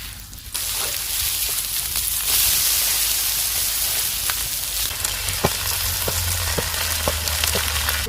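Meat frying in hot fat: a steady sizzle that starts about half a second in and grows louder near two seconds in, with scattered sharp pops.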